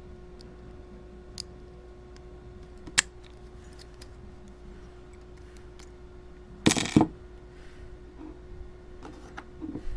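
Small metal clicks and ticks of lock-picking tools working the pins of a Master Lock No. 3 laminated padlock, with a sharp click about three seconds in and a louder double metal clatter a little before seven seconds. A faint steady hum runs underneath.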